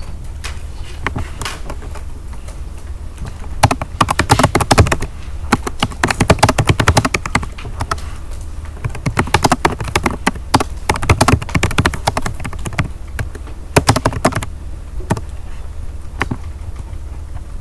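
Typing on a computer keyboard in bursts of rapid keystrokes, with a low steady hum underneath.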